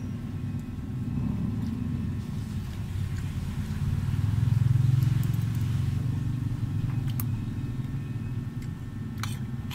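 A low rumble that swells about halfway through and then eases, with a few light clicks of a metal spoon against a plate near the end.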